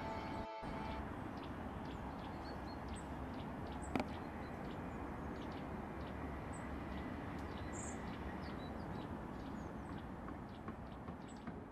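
Outdoor ambience: a steady background hiss and rumble with small birds chirping now and then, and a single sharp click about four seconds in. Sustained music notes trail off in the first second, and the ambience fades out near the end.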